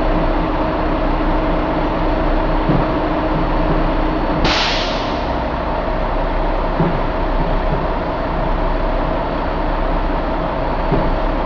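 2019 Mack MP8 13-litre inline-six diesel engine running steadily at idle, with a sudden hiss of released air partway through that fades away over about a second.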